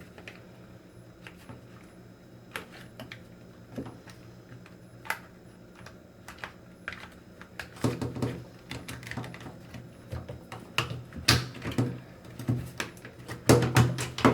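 Scattered clicks and light knocks of hands handling and fitting a plastic washer door lock assembly, sparse at first and busier about halfway through, over a faint low hum.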